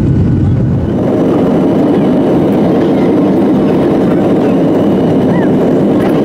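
Boeing 737 jet engines at takeoff thrust during the takeoff roll, heard inside the cabin: loud, steady engine and rushing-air noise. About a second in, the low rumble gives way to a higher, fuller rush.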